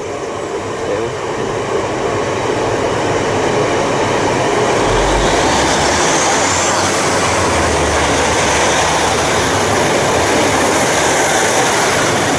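A train passing through the station without stopping: the noise of its wheels on the rails and its running gear builds over the first four seconds, then holds loud and steady.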